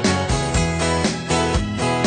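Background music with a steady beat, led by guitar.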